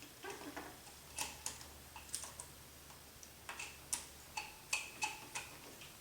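Irregular light clicks and taps of small parts and a tool being handled while fitting the main gear of an Align T-Rex 500 RC helicopter, a few of them with a short ring.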